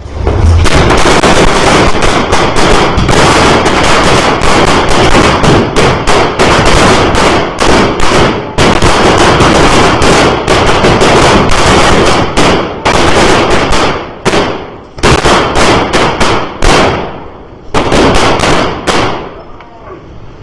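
A 300 wala string of small bijili firecrackers going off in a rapid, continuous crackle of bangs, thinning into separate short bursts with brief gaps over the last six seconds or so.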